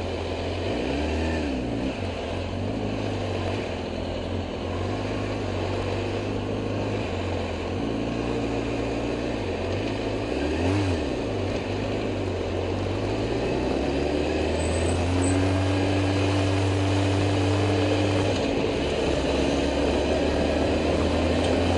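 A motor vehicle's engine running, its pitch rising and falling several times as it is revved and eased off, then holding steadier in the second half.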